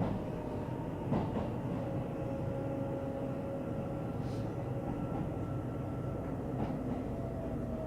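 Taiwan Railway passenger train heard from inside the carriage: a steady rumble with a faint whine and a few light clicks.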